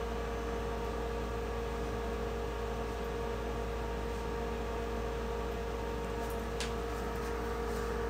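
Steady electrical machine hum: a constant mid-pitched tone over an even hiss, with a faint click about six and a half seconds in.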